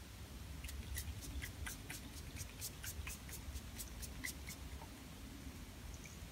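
Caudalie Beauty Elixir fine-mist pump spray spritzed over and over, a quick run of short sprays about three or four a second that stops after about four seconds.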